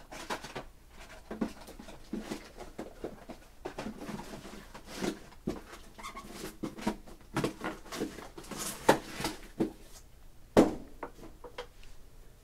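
Trading-card boxes and foil card packs being handled: irregular rustling and crinkling with scattered light knocks, the loudest a sharp knock near the end.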